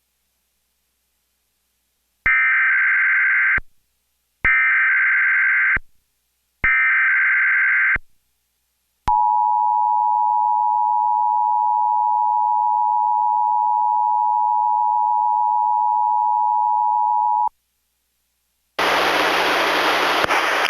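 Emergency Alert System activation: three SAME digital header tones, each about a second and a half long with short gaps between, then the steady two-tone attention signal held for about eight seconds. About two seconds before the end a loud, noisy hiss begins.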